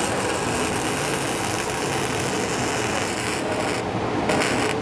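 Self-shielded flux-core (gasless) welding arc burning on galvanized steel tubing: a steady, dense crackle and sizzle of the arc, with brief flickers near the end.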